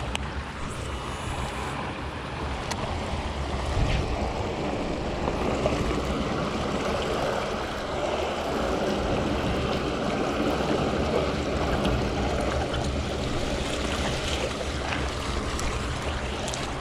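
Steady rush of river water spilling between the blocks of a concrete weir, with some wind on the microphone.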